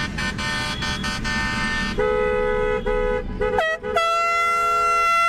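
Several vehicle horns honking at once for about two seconds. Then a two-note car horn sounds in a few short toots, and a single long blast is held from about four seconds in.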